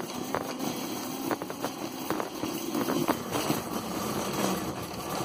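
Red plastic shopping cart rolling across a hard store floor, the wheels rumbling and the basket rattling with scattered clicks.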